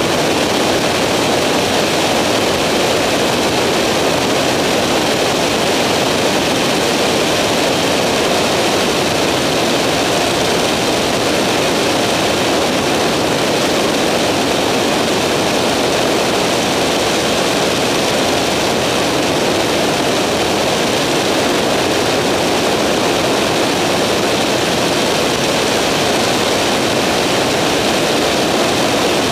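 Skyranger microlight's engine and propeller running steadily in cruise, heard from on board, mixed with rushing wind noise on the microphone. The level stays even throughout.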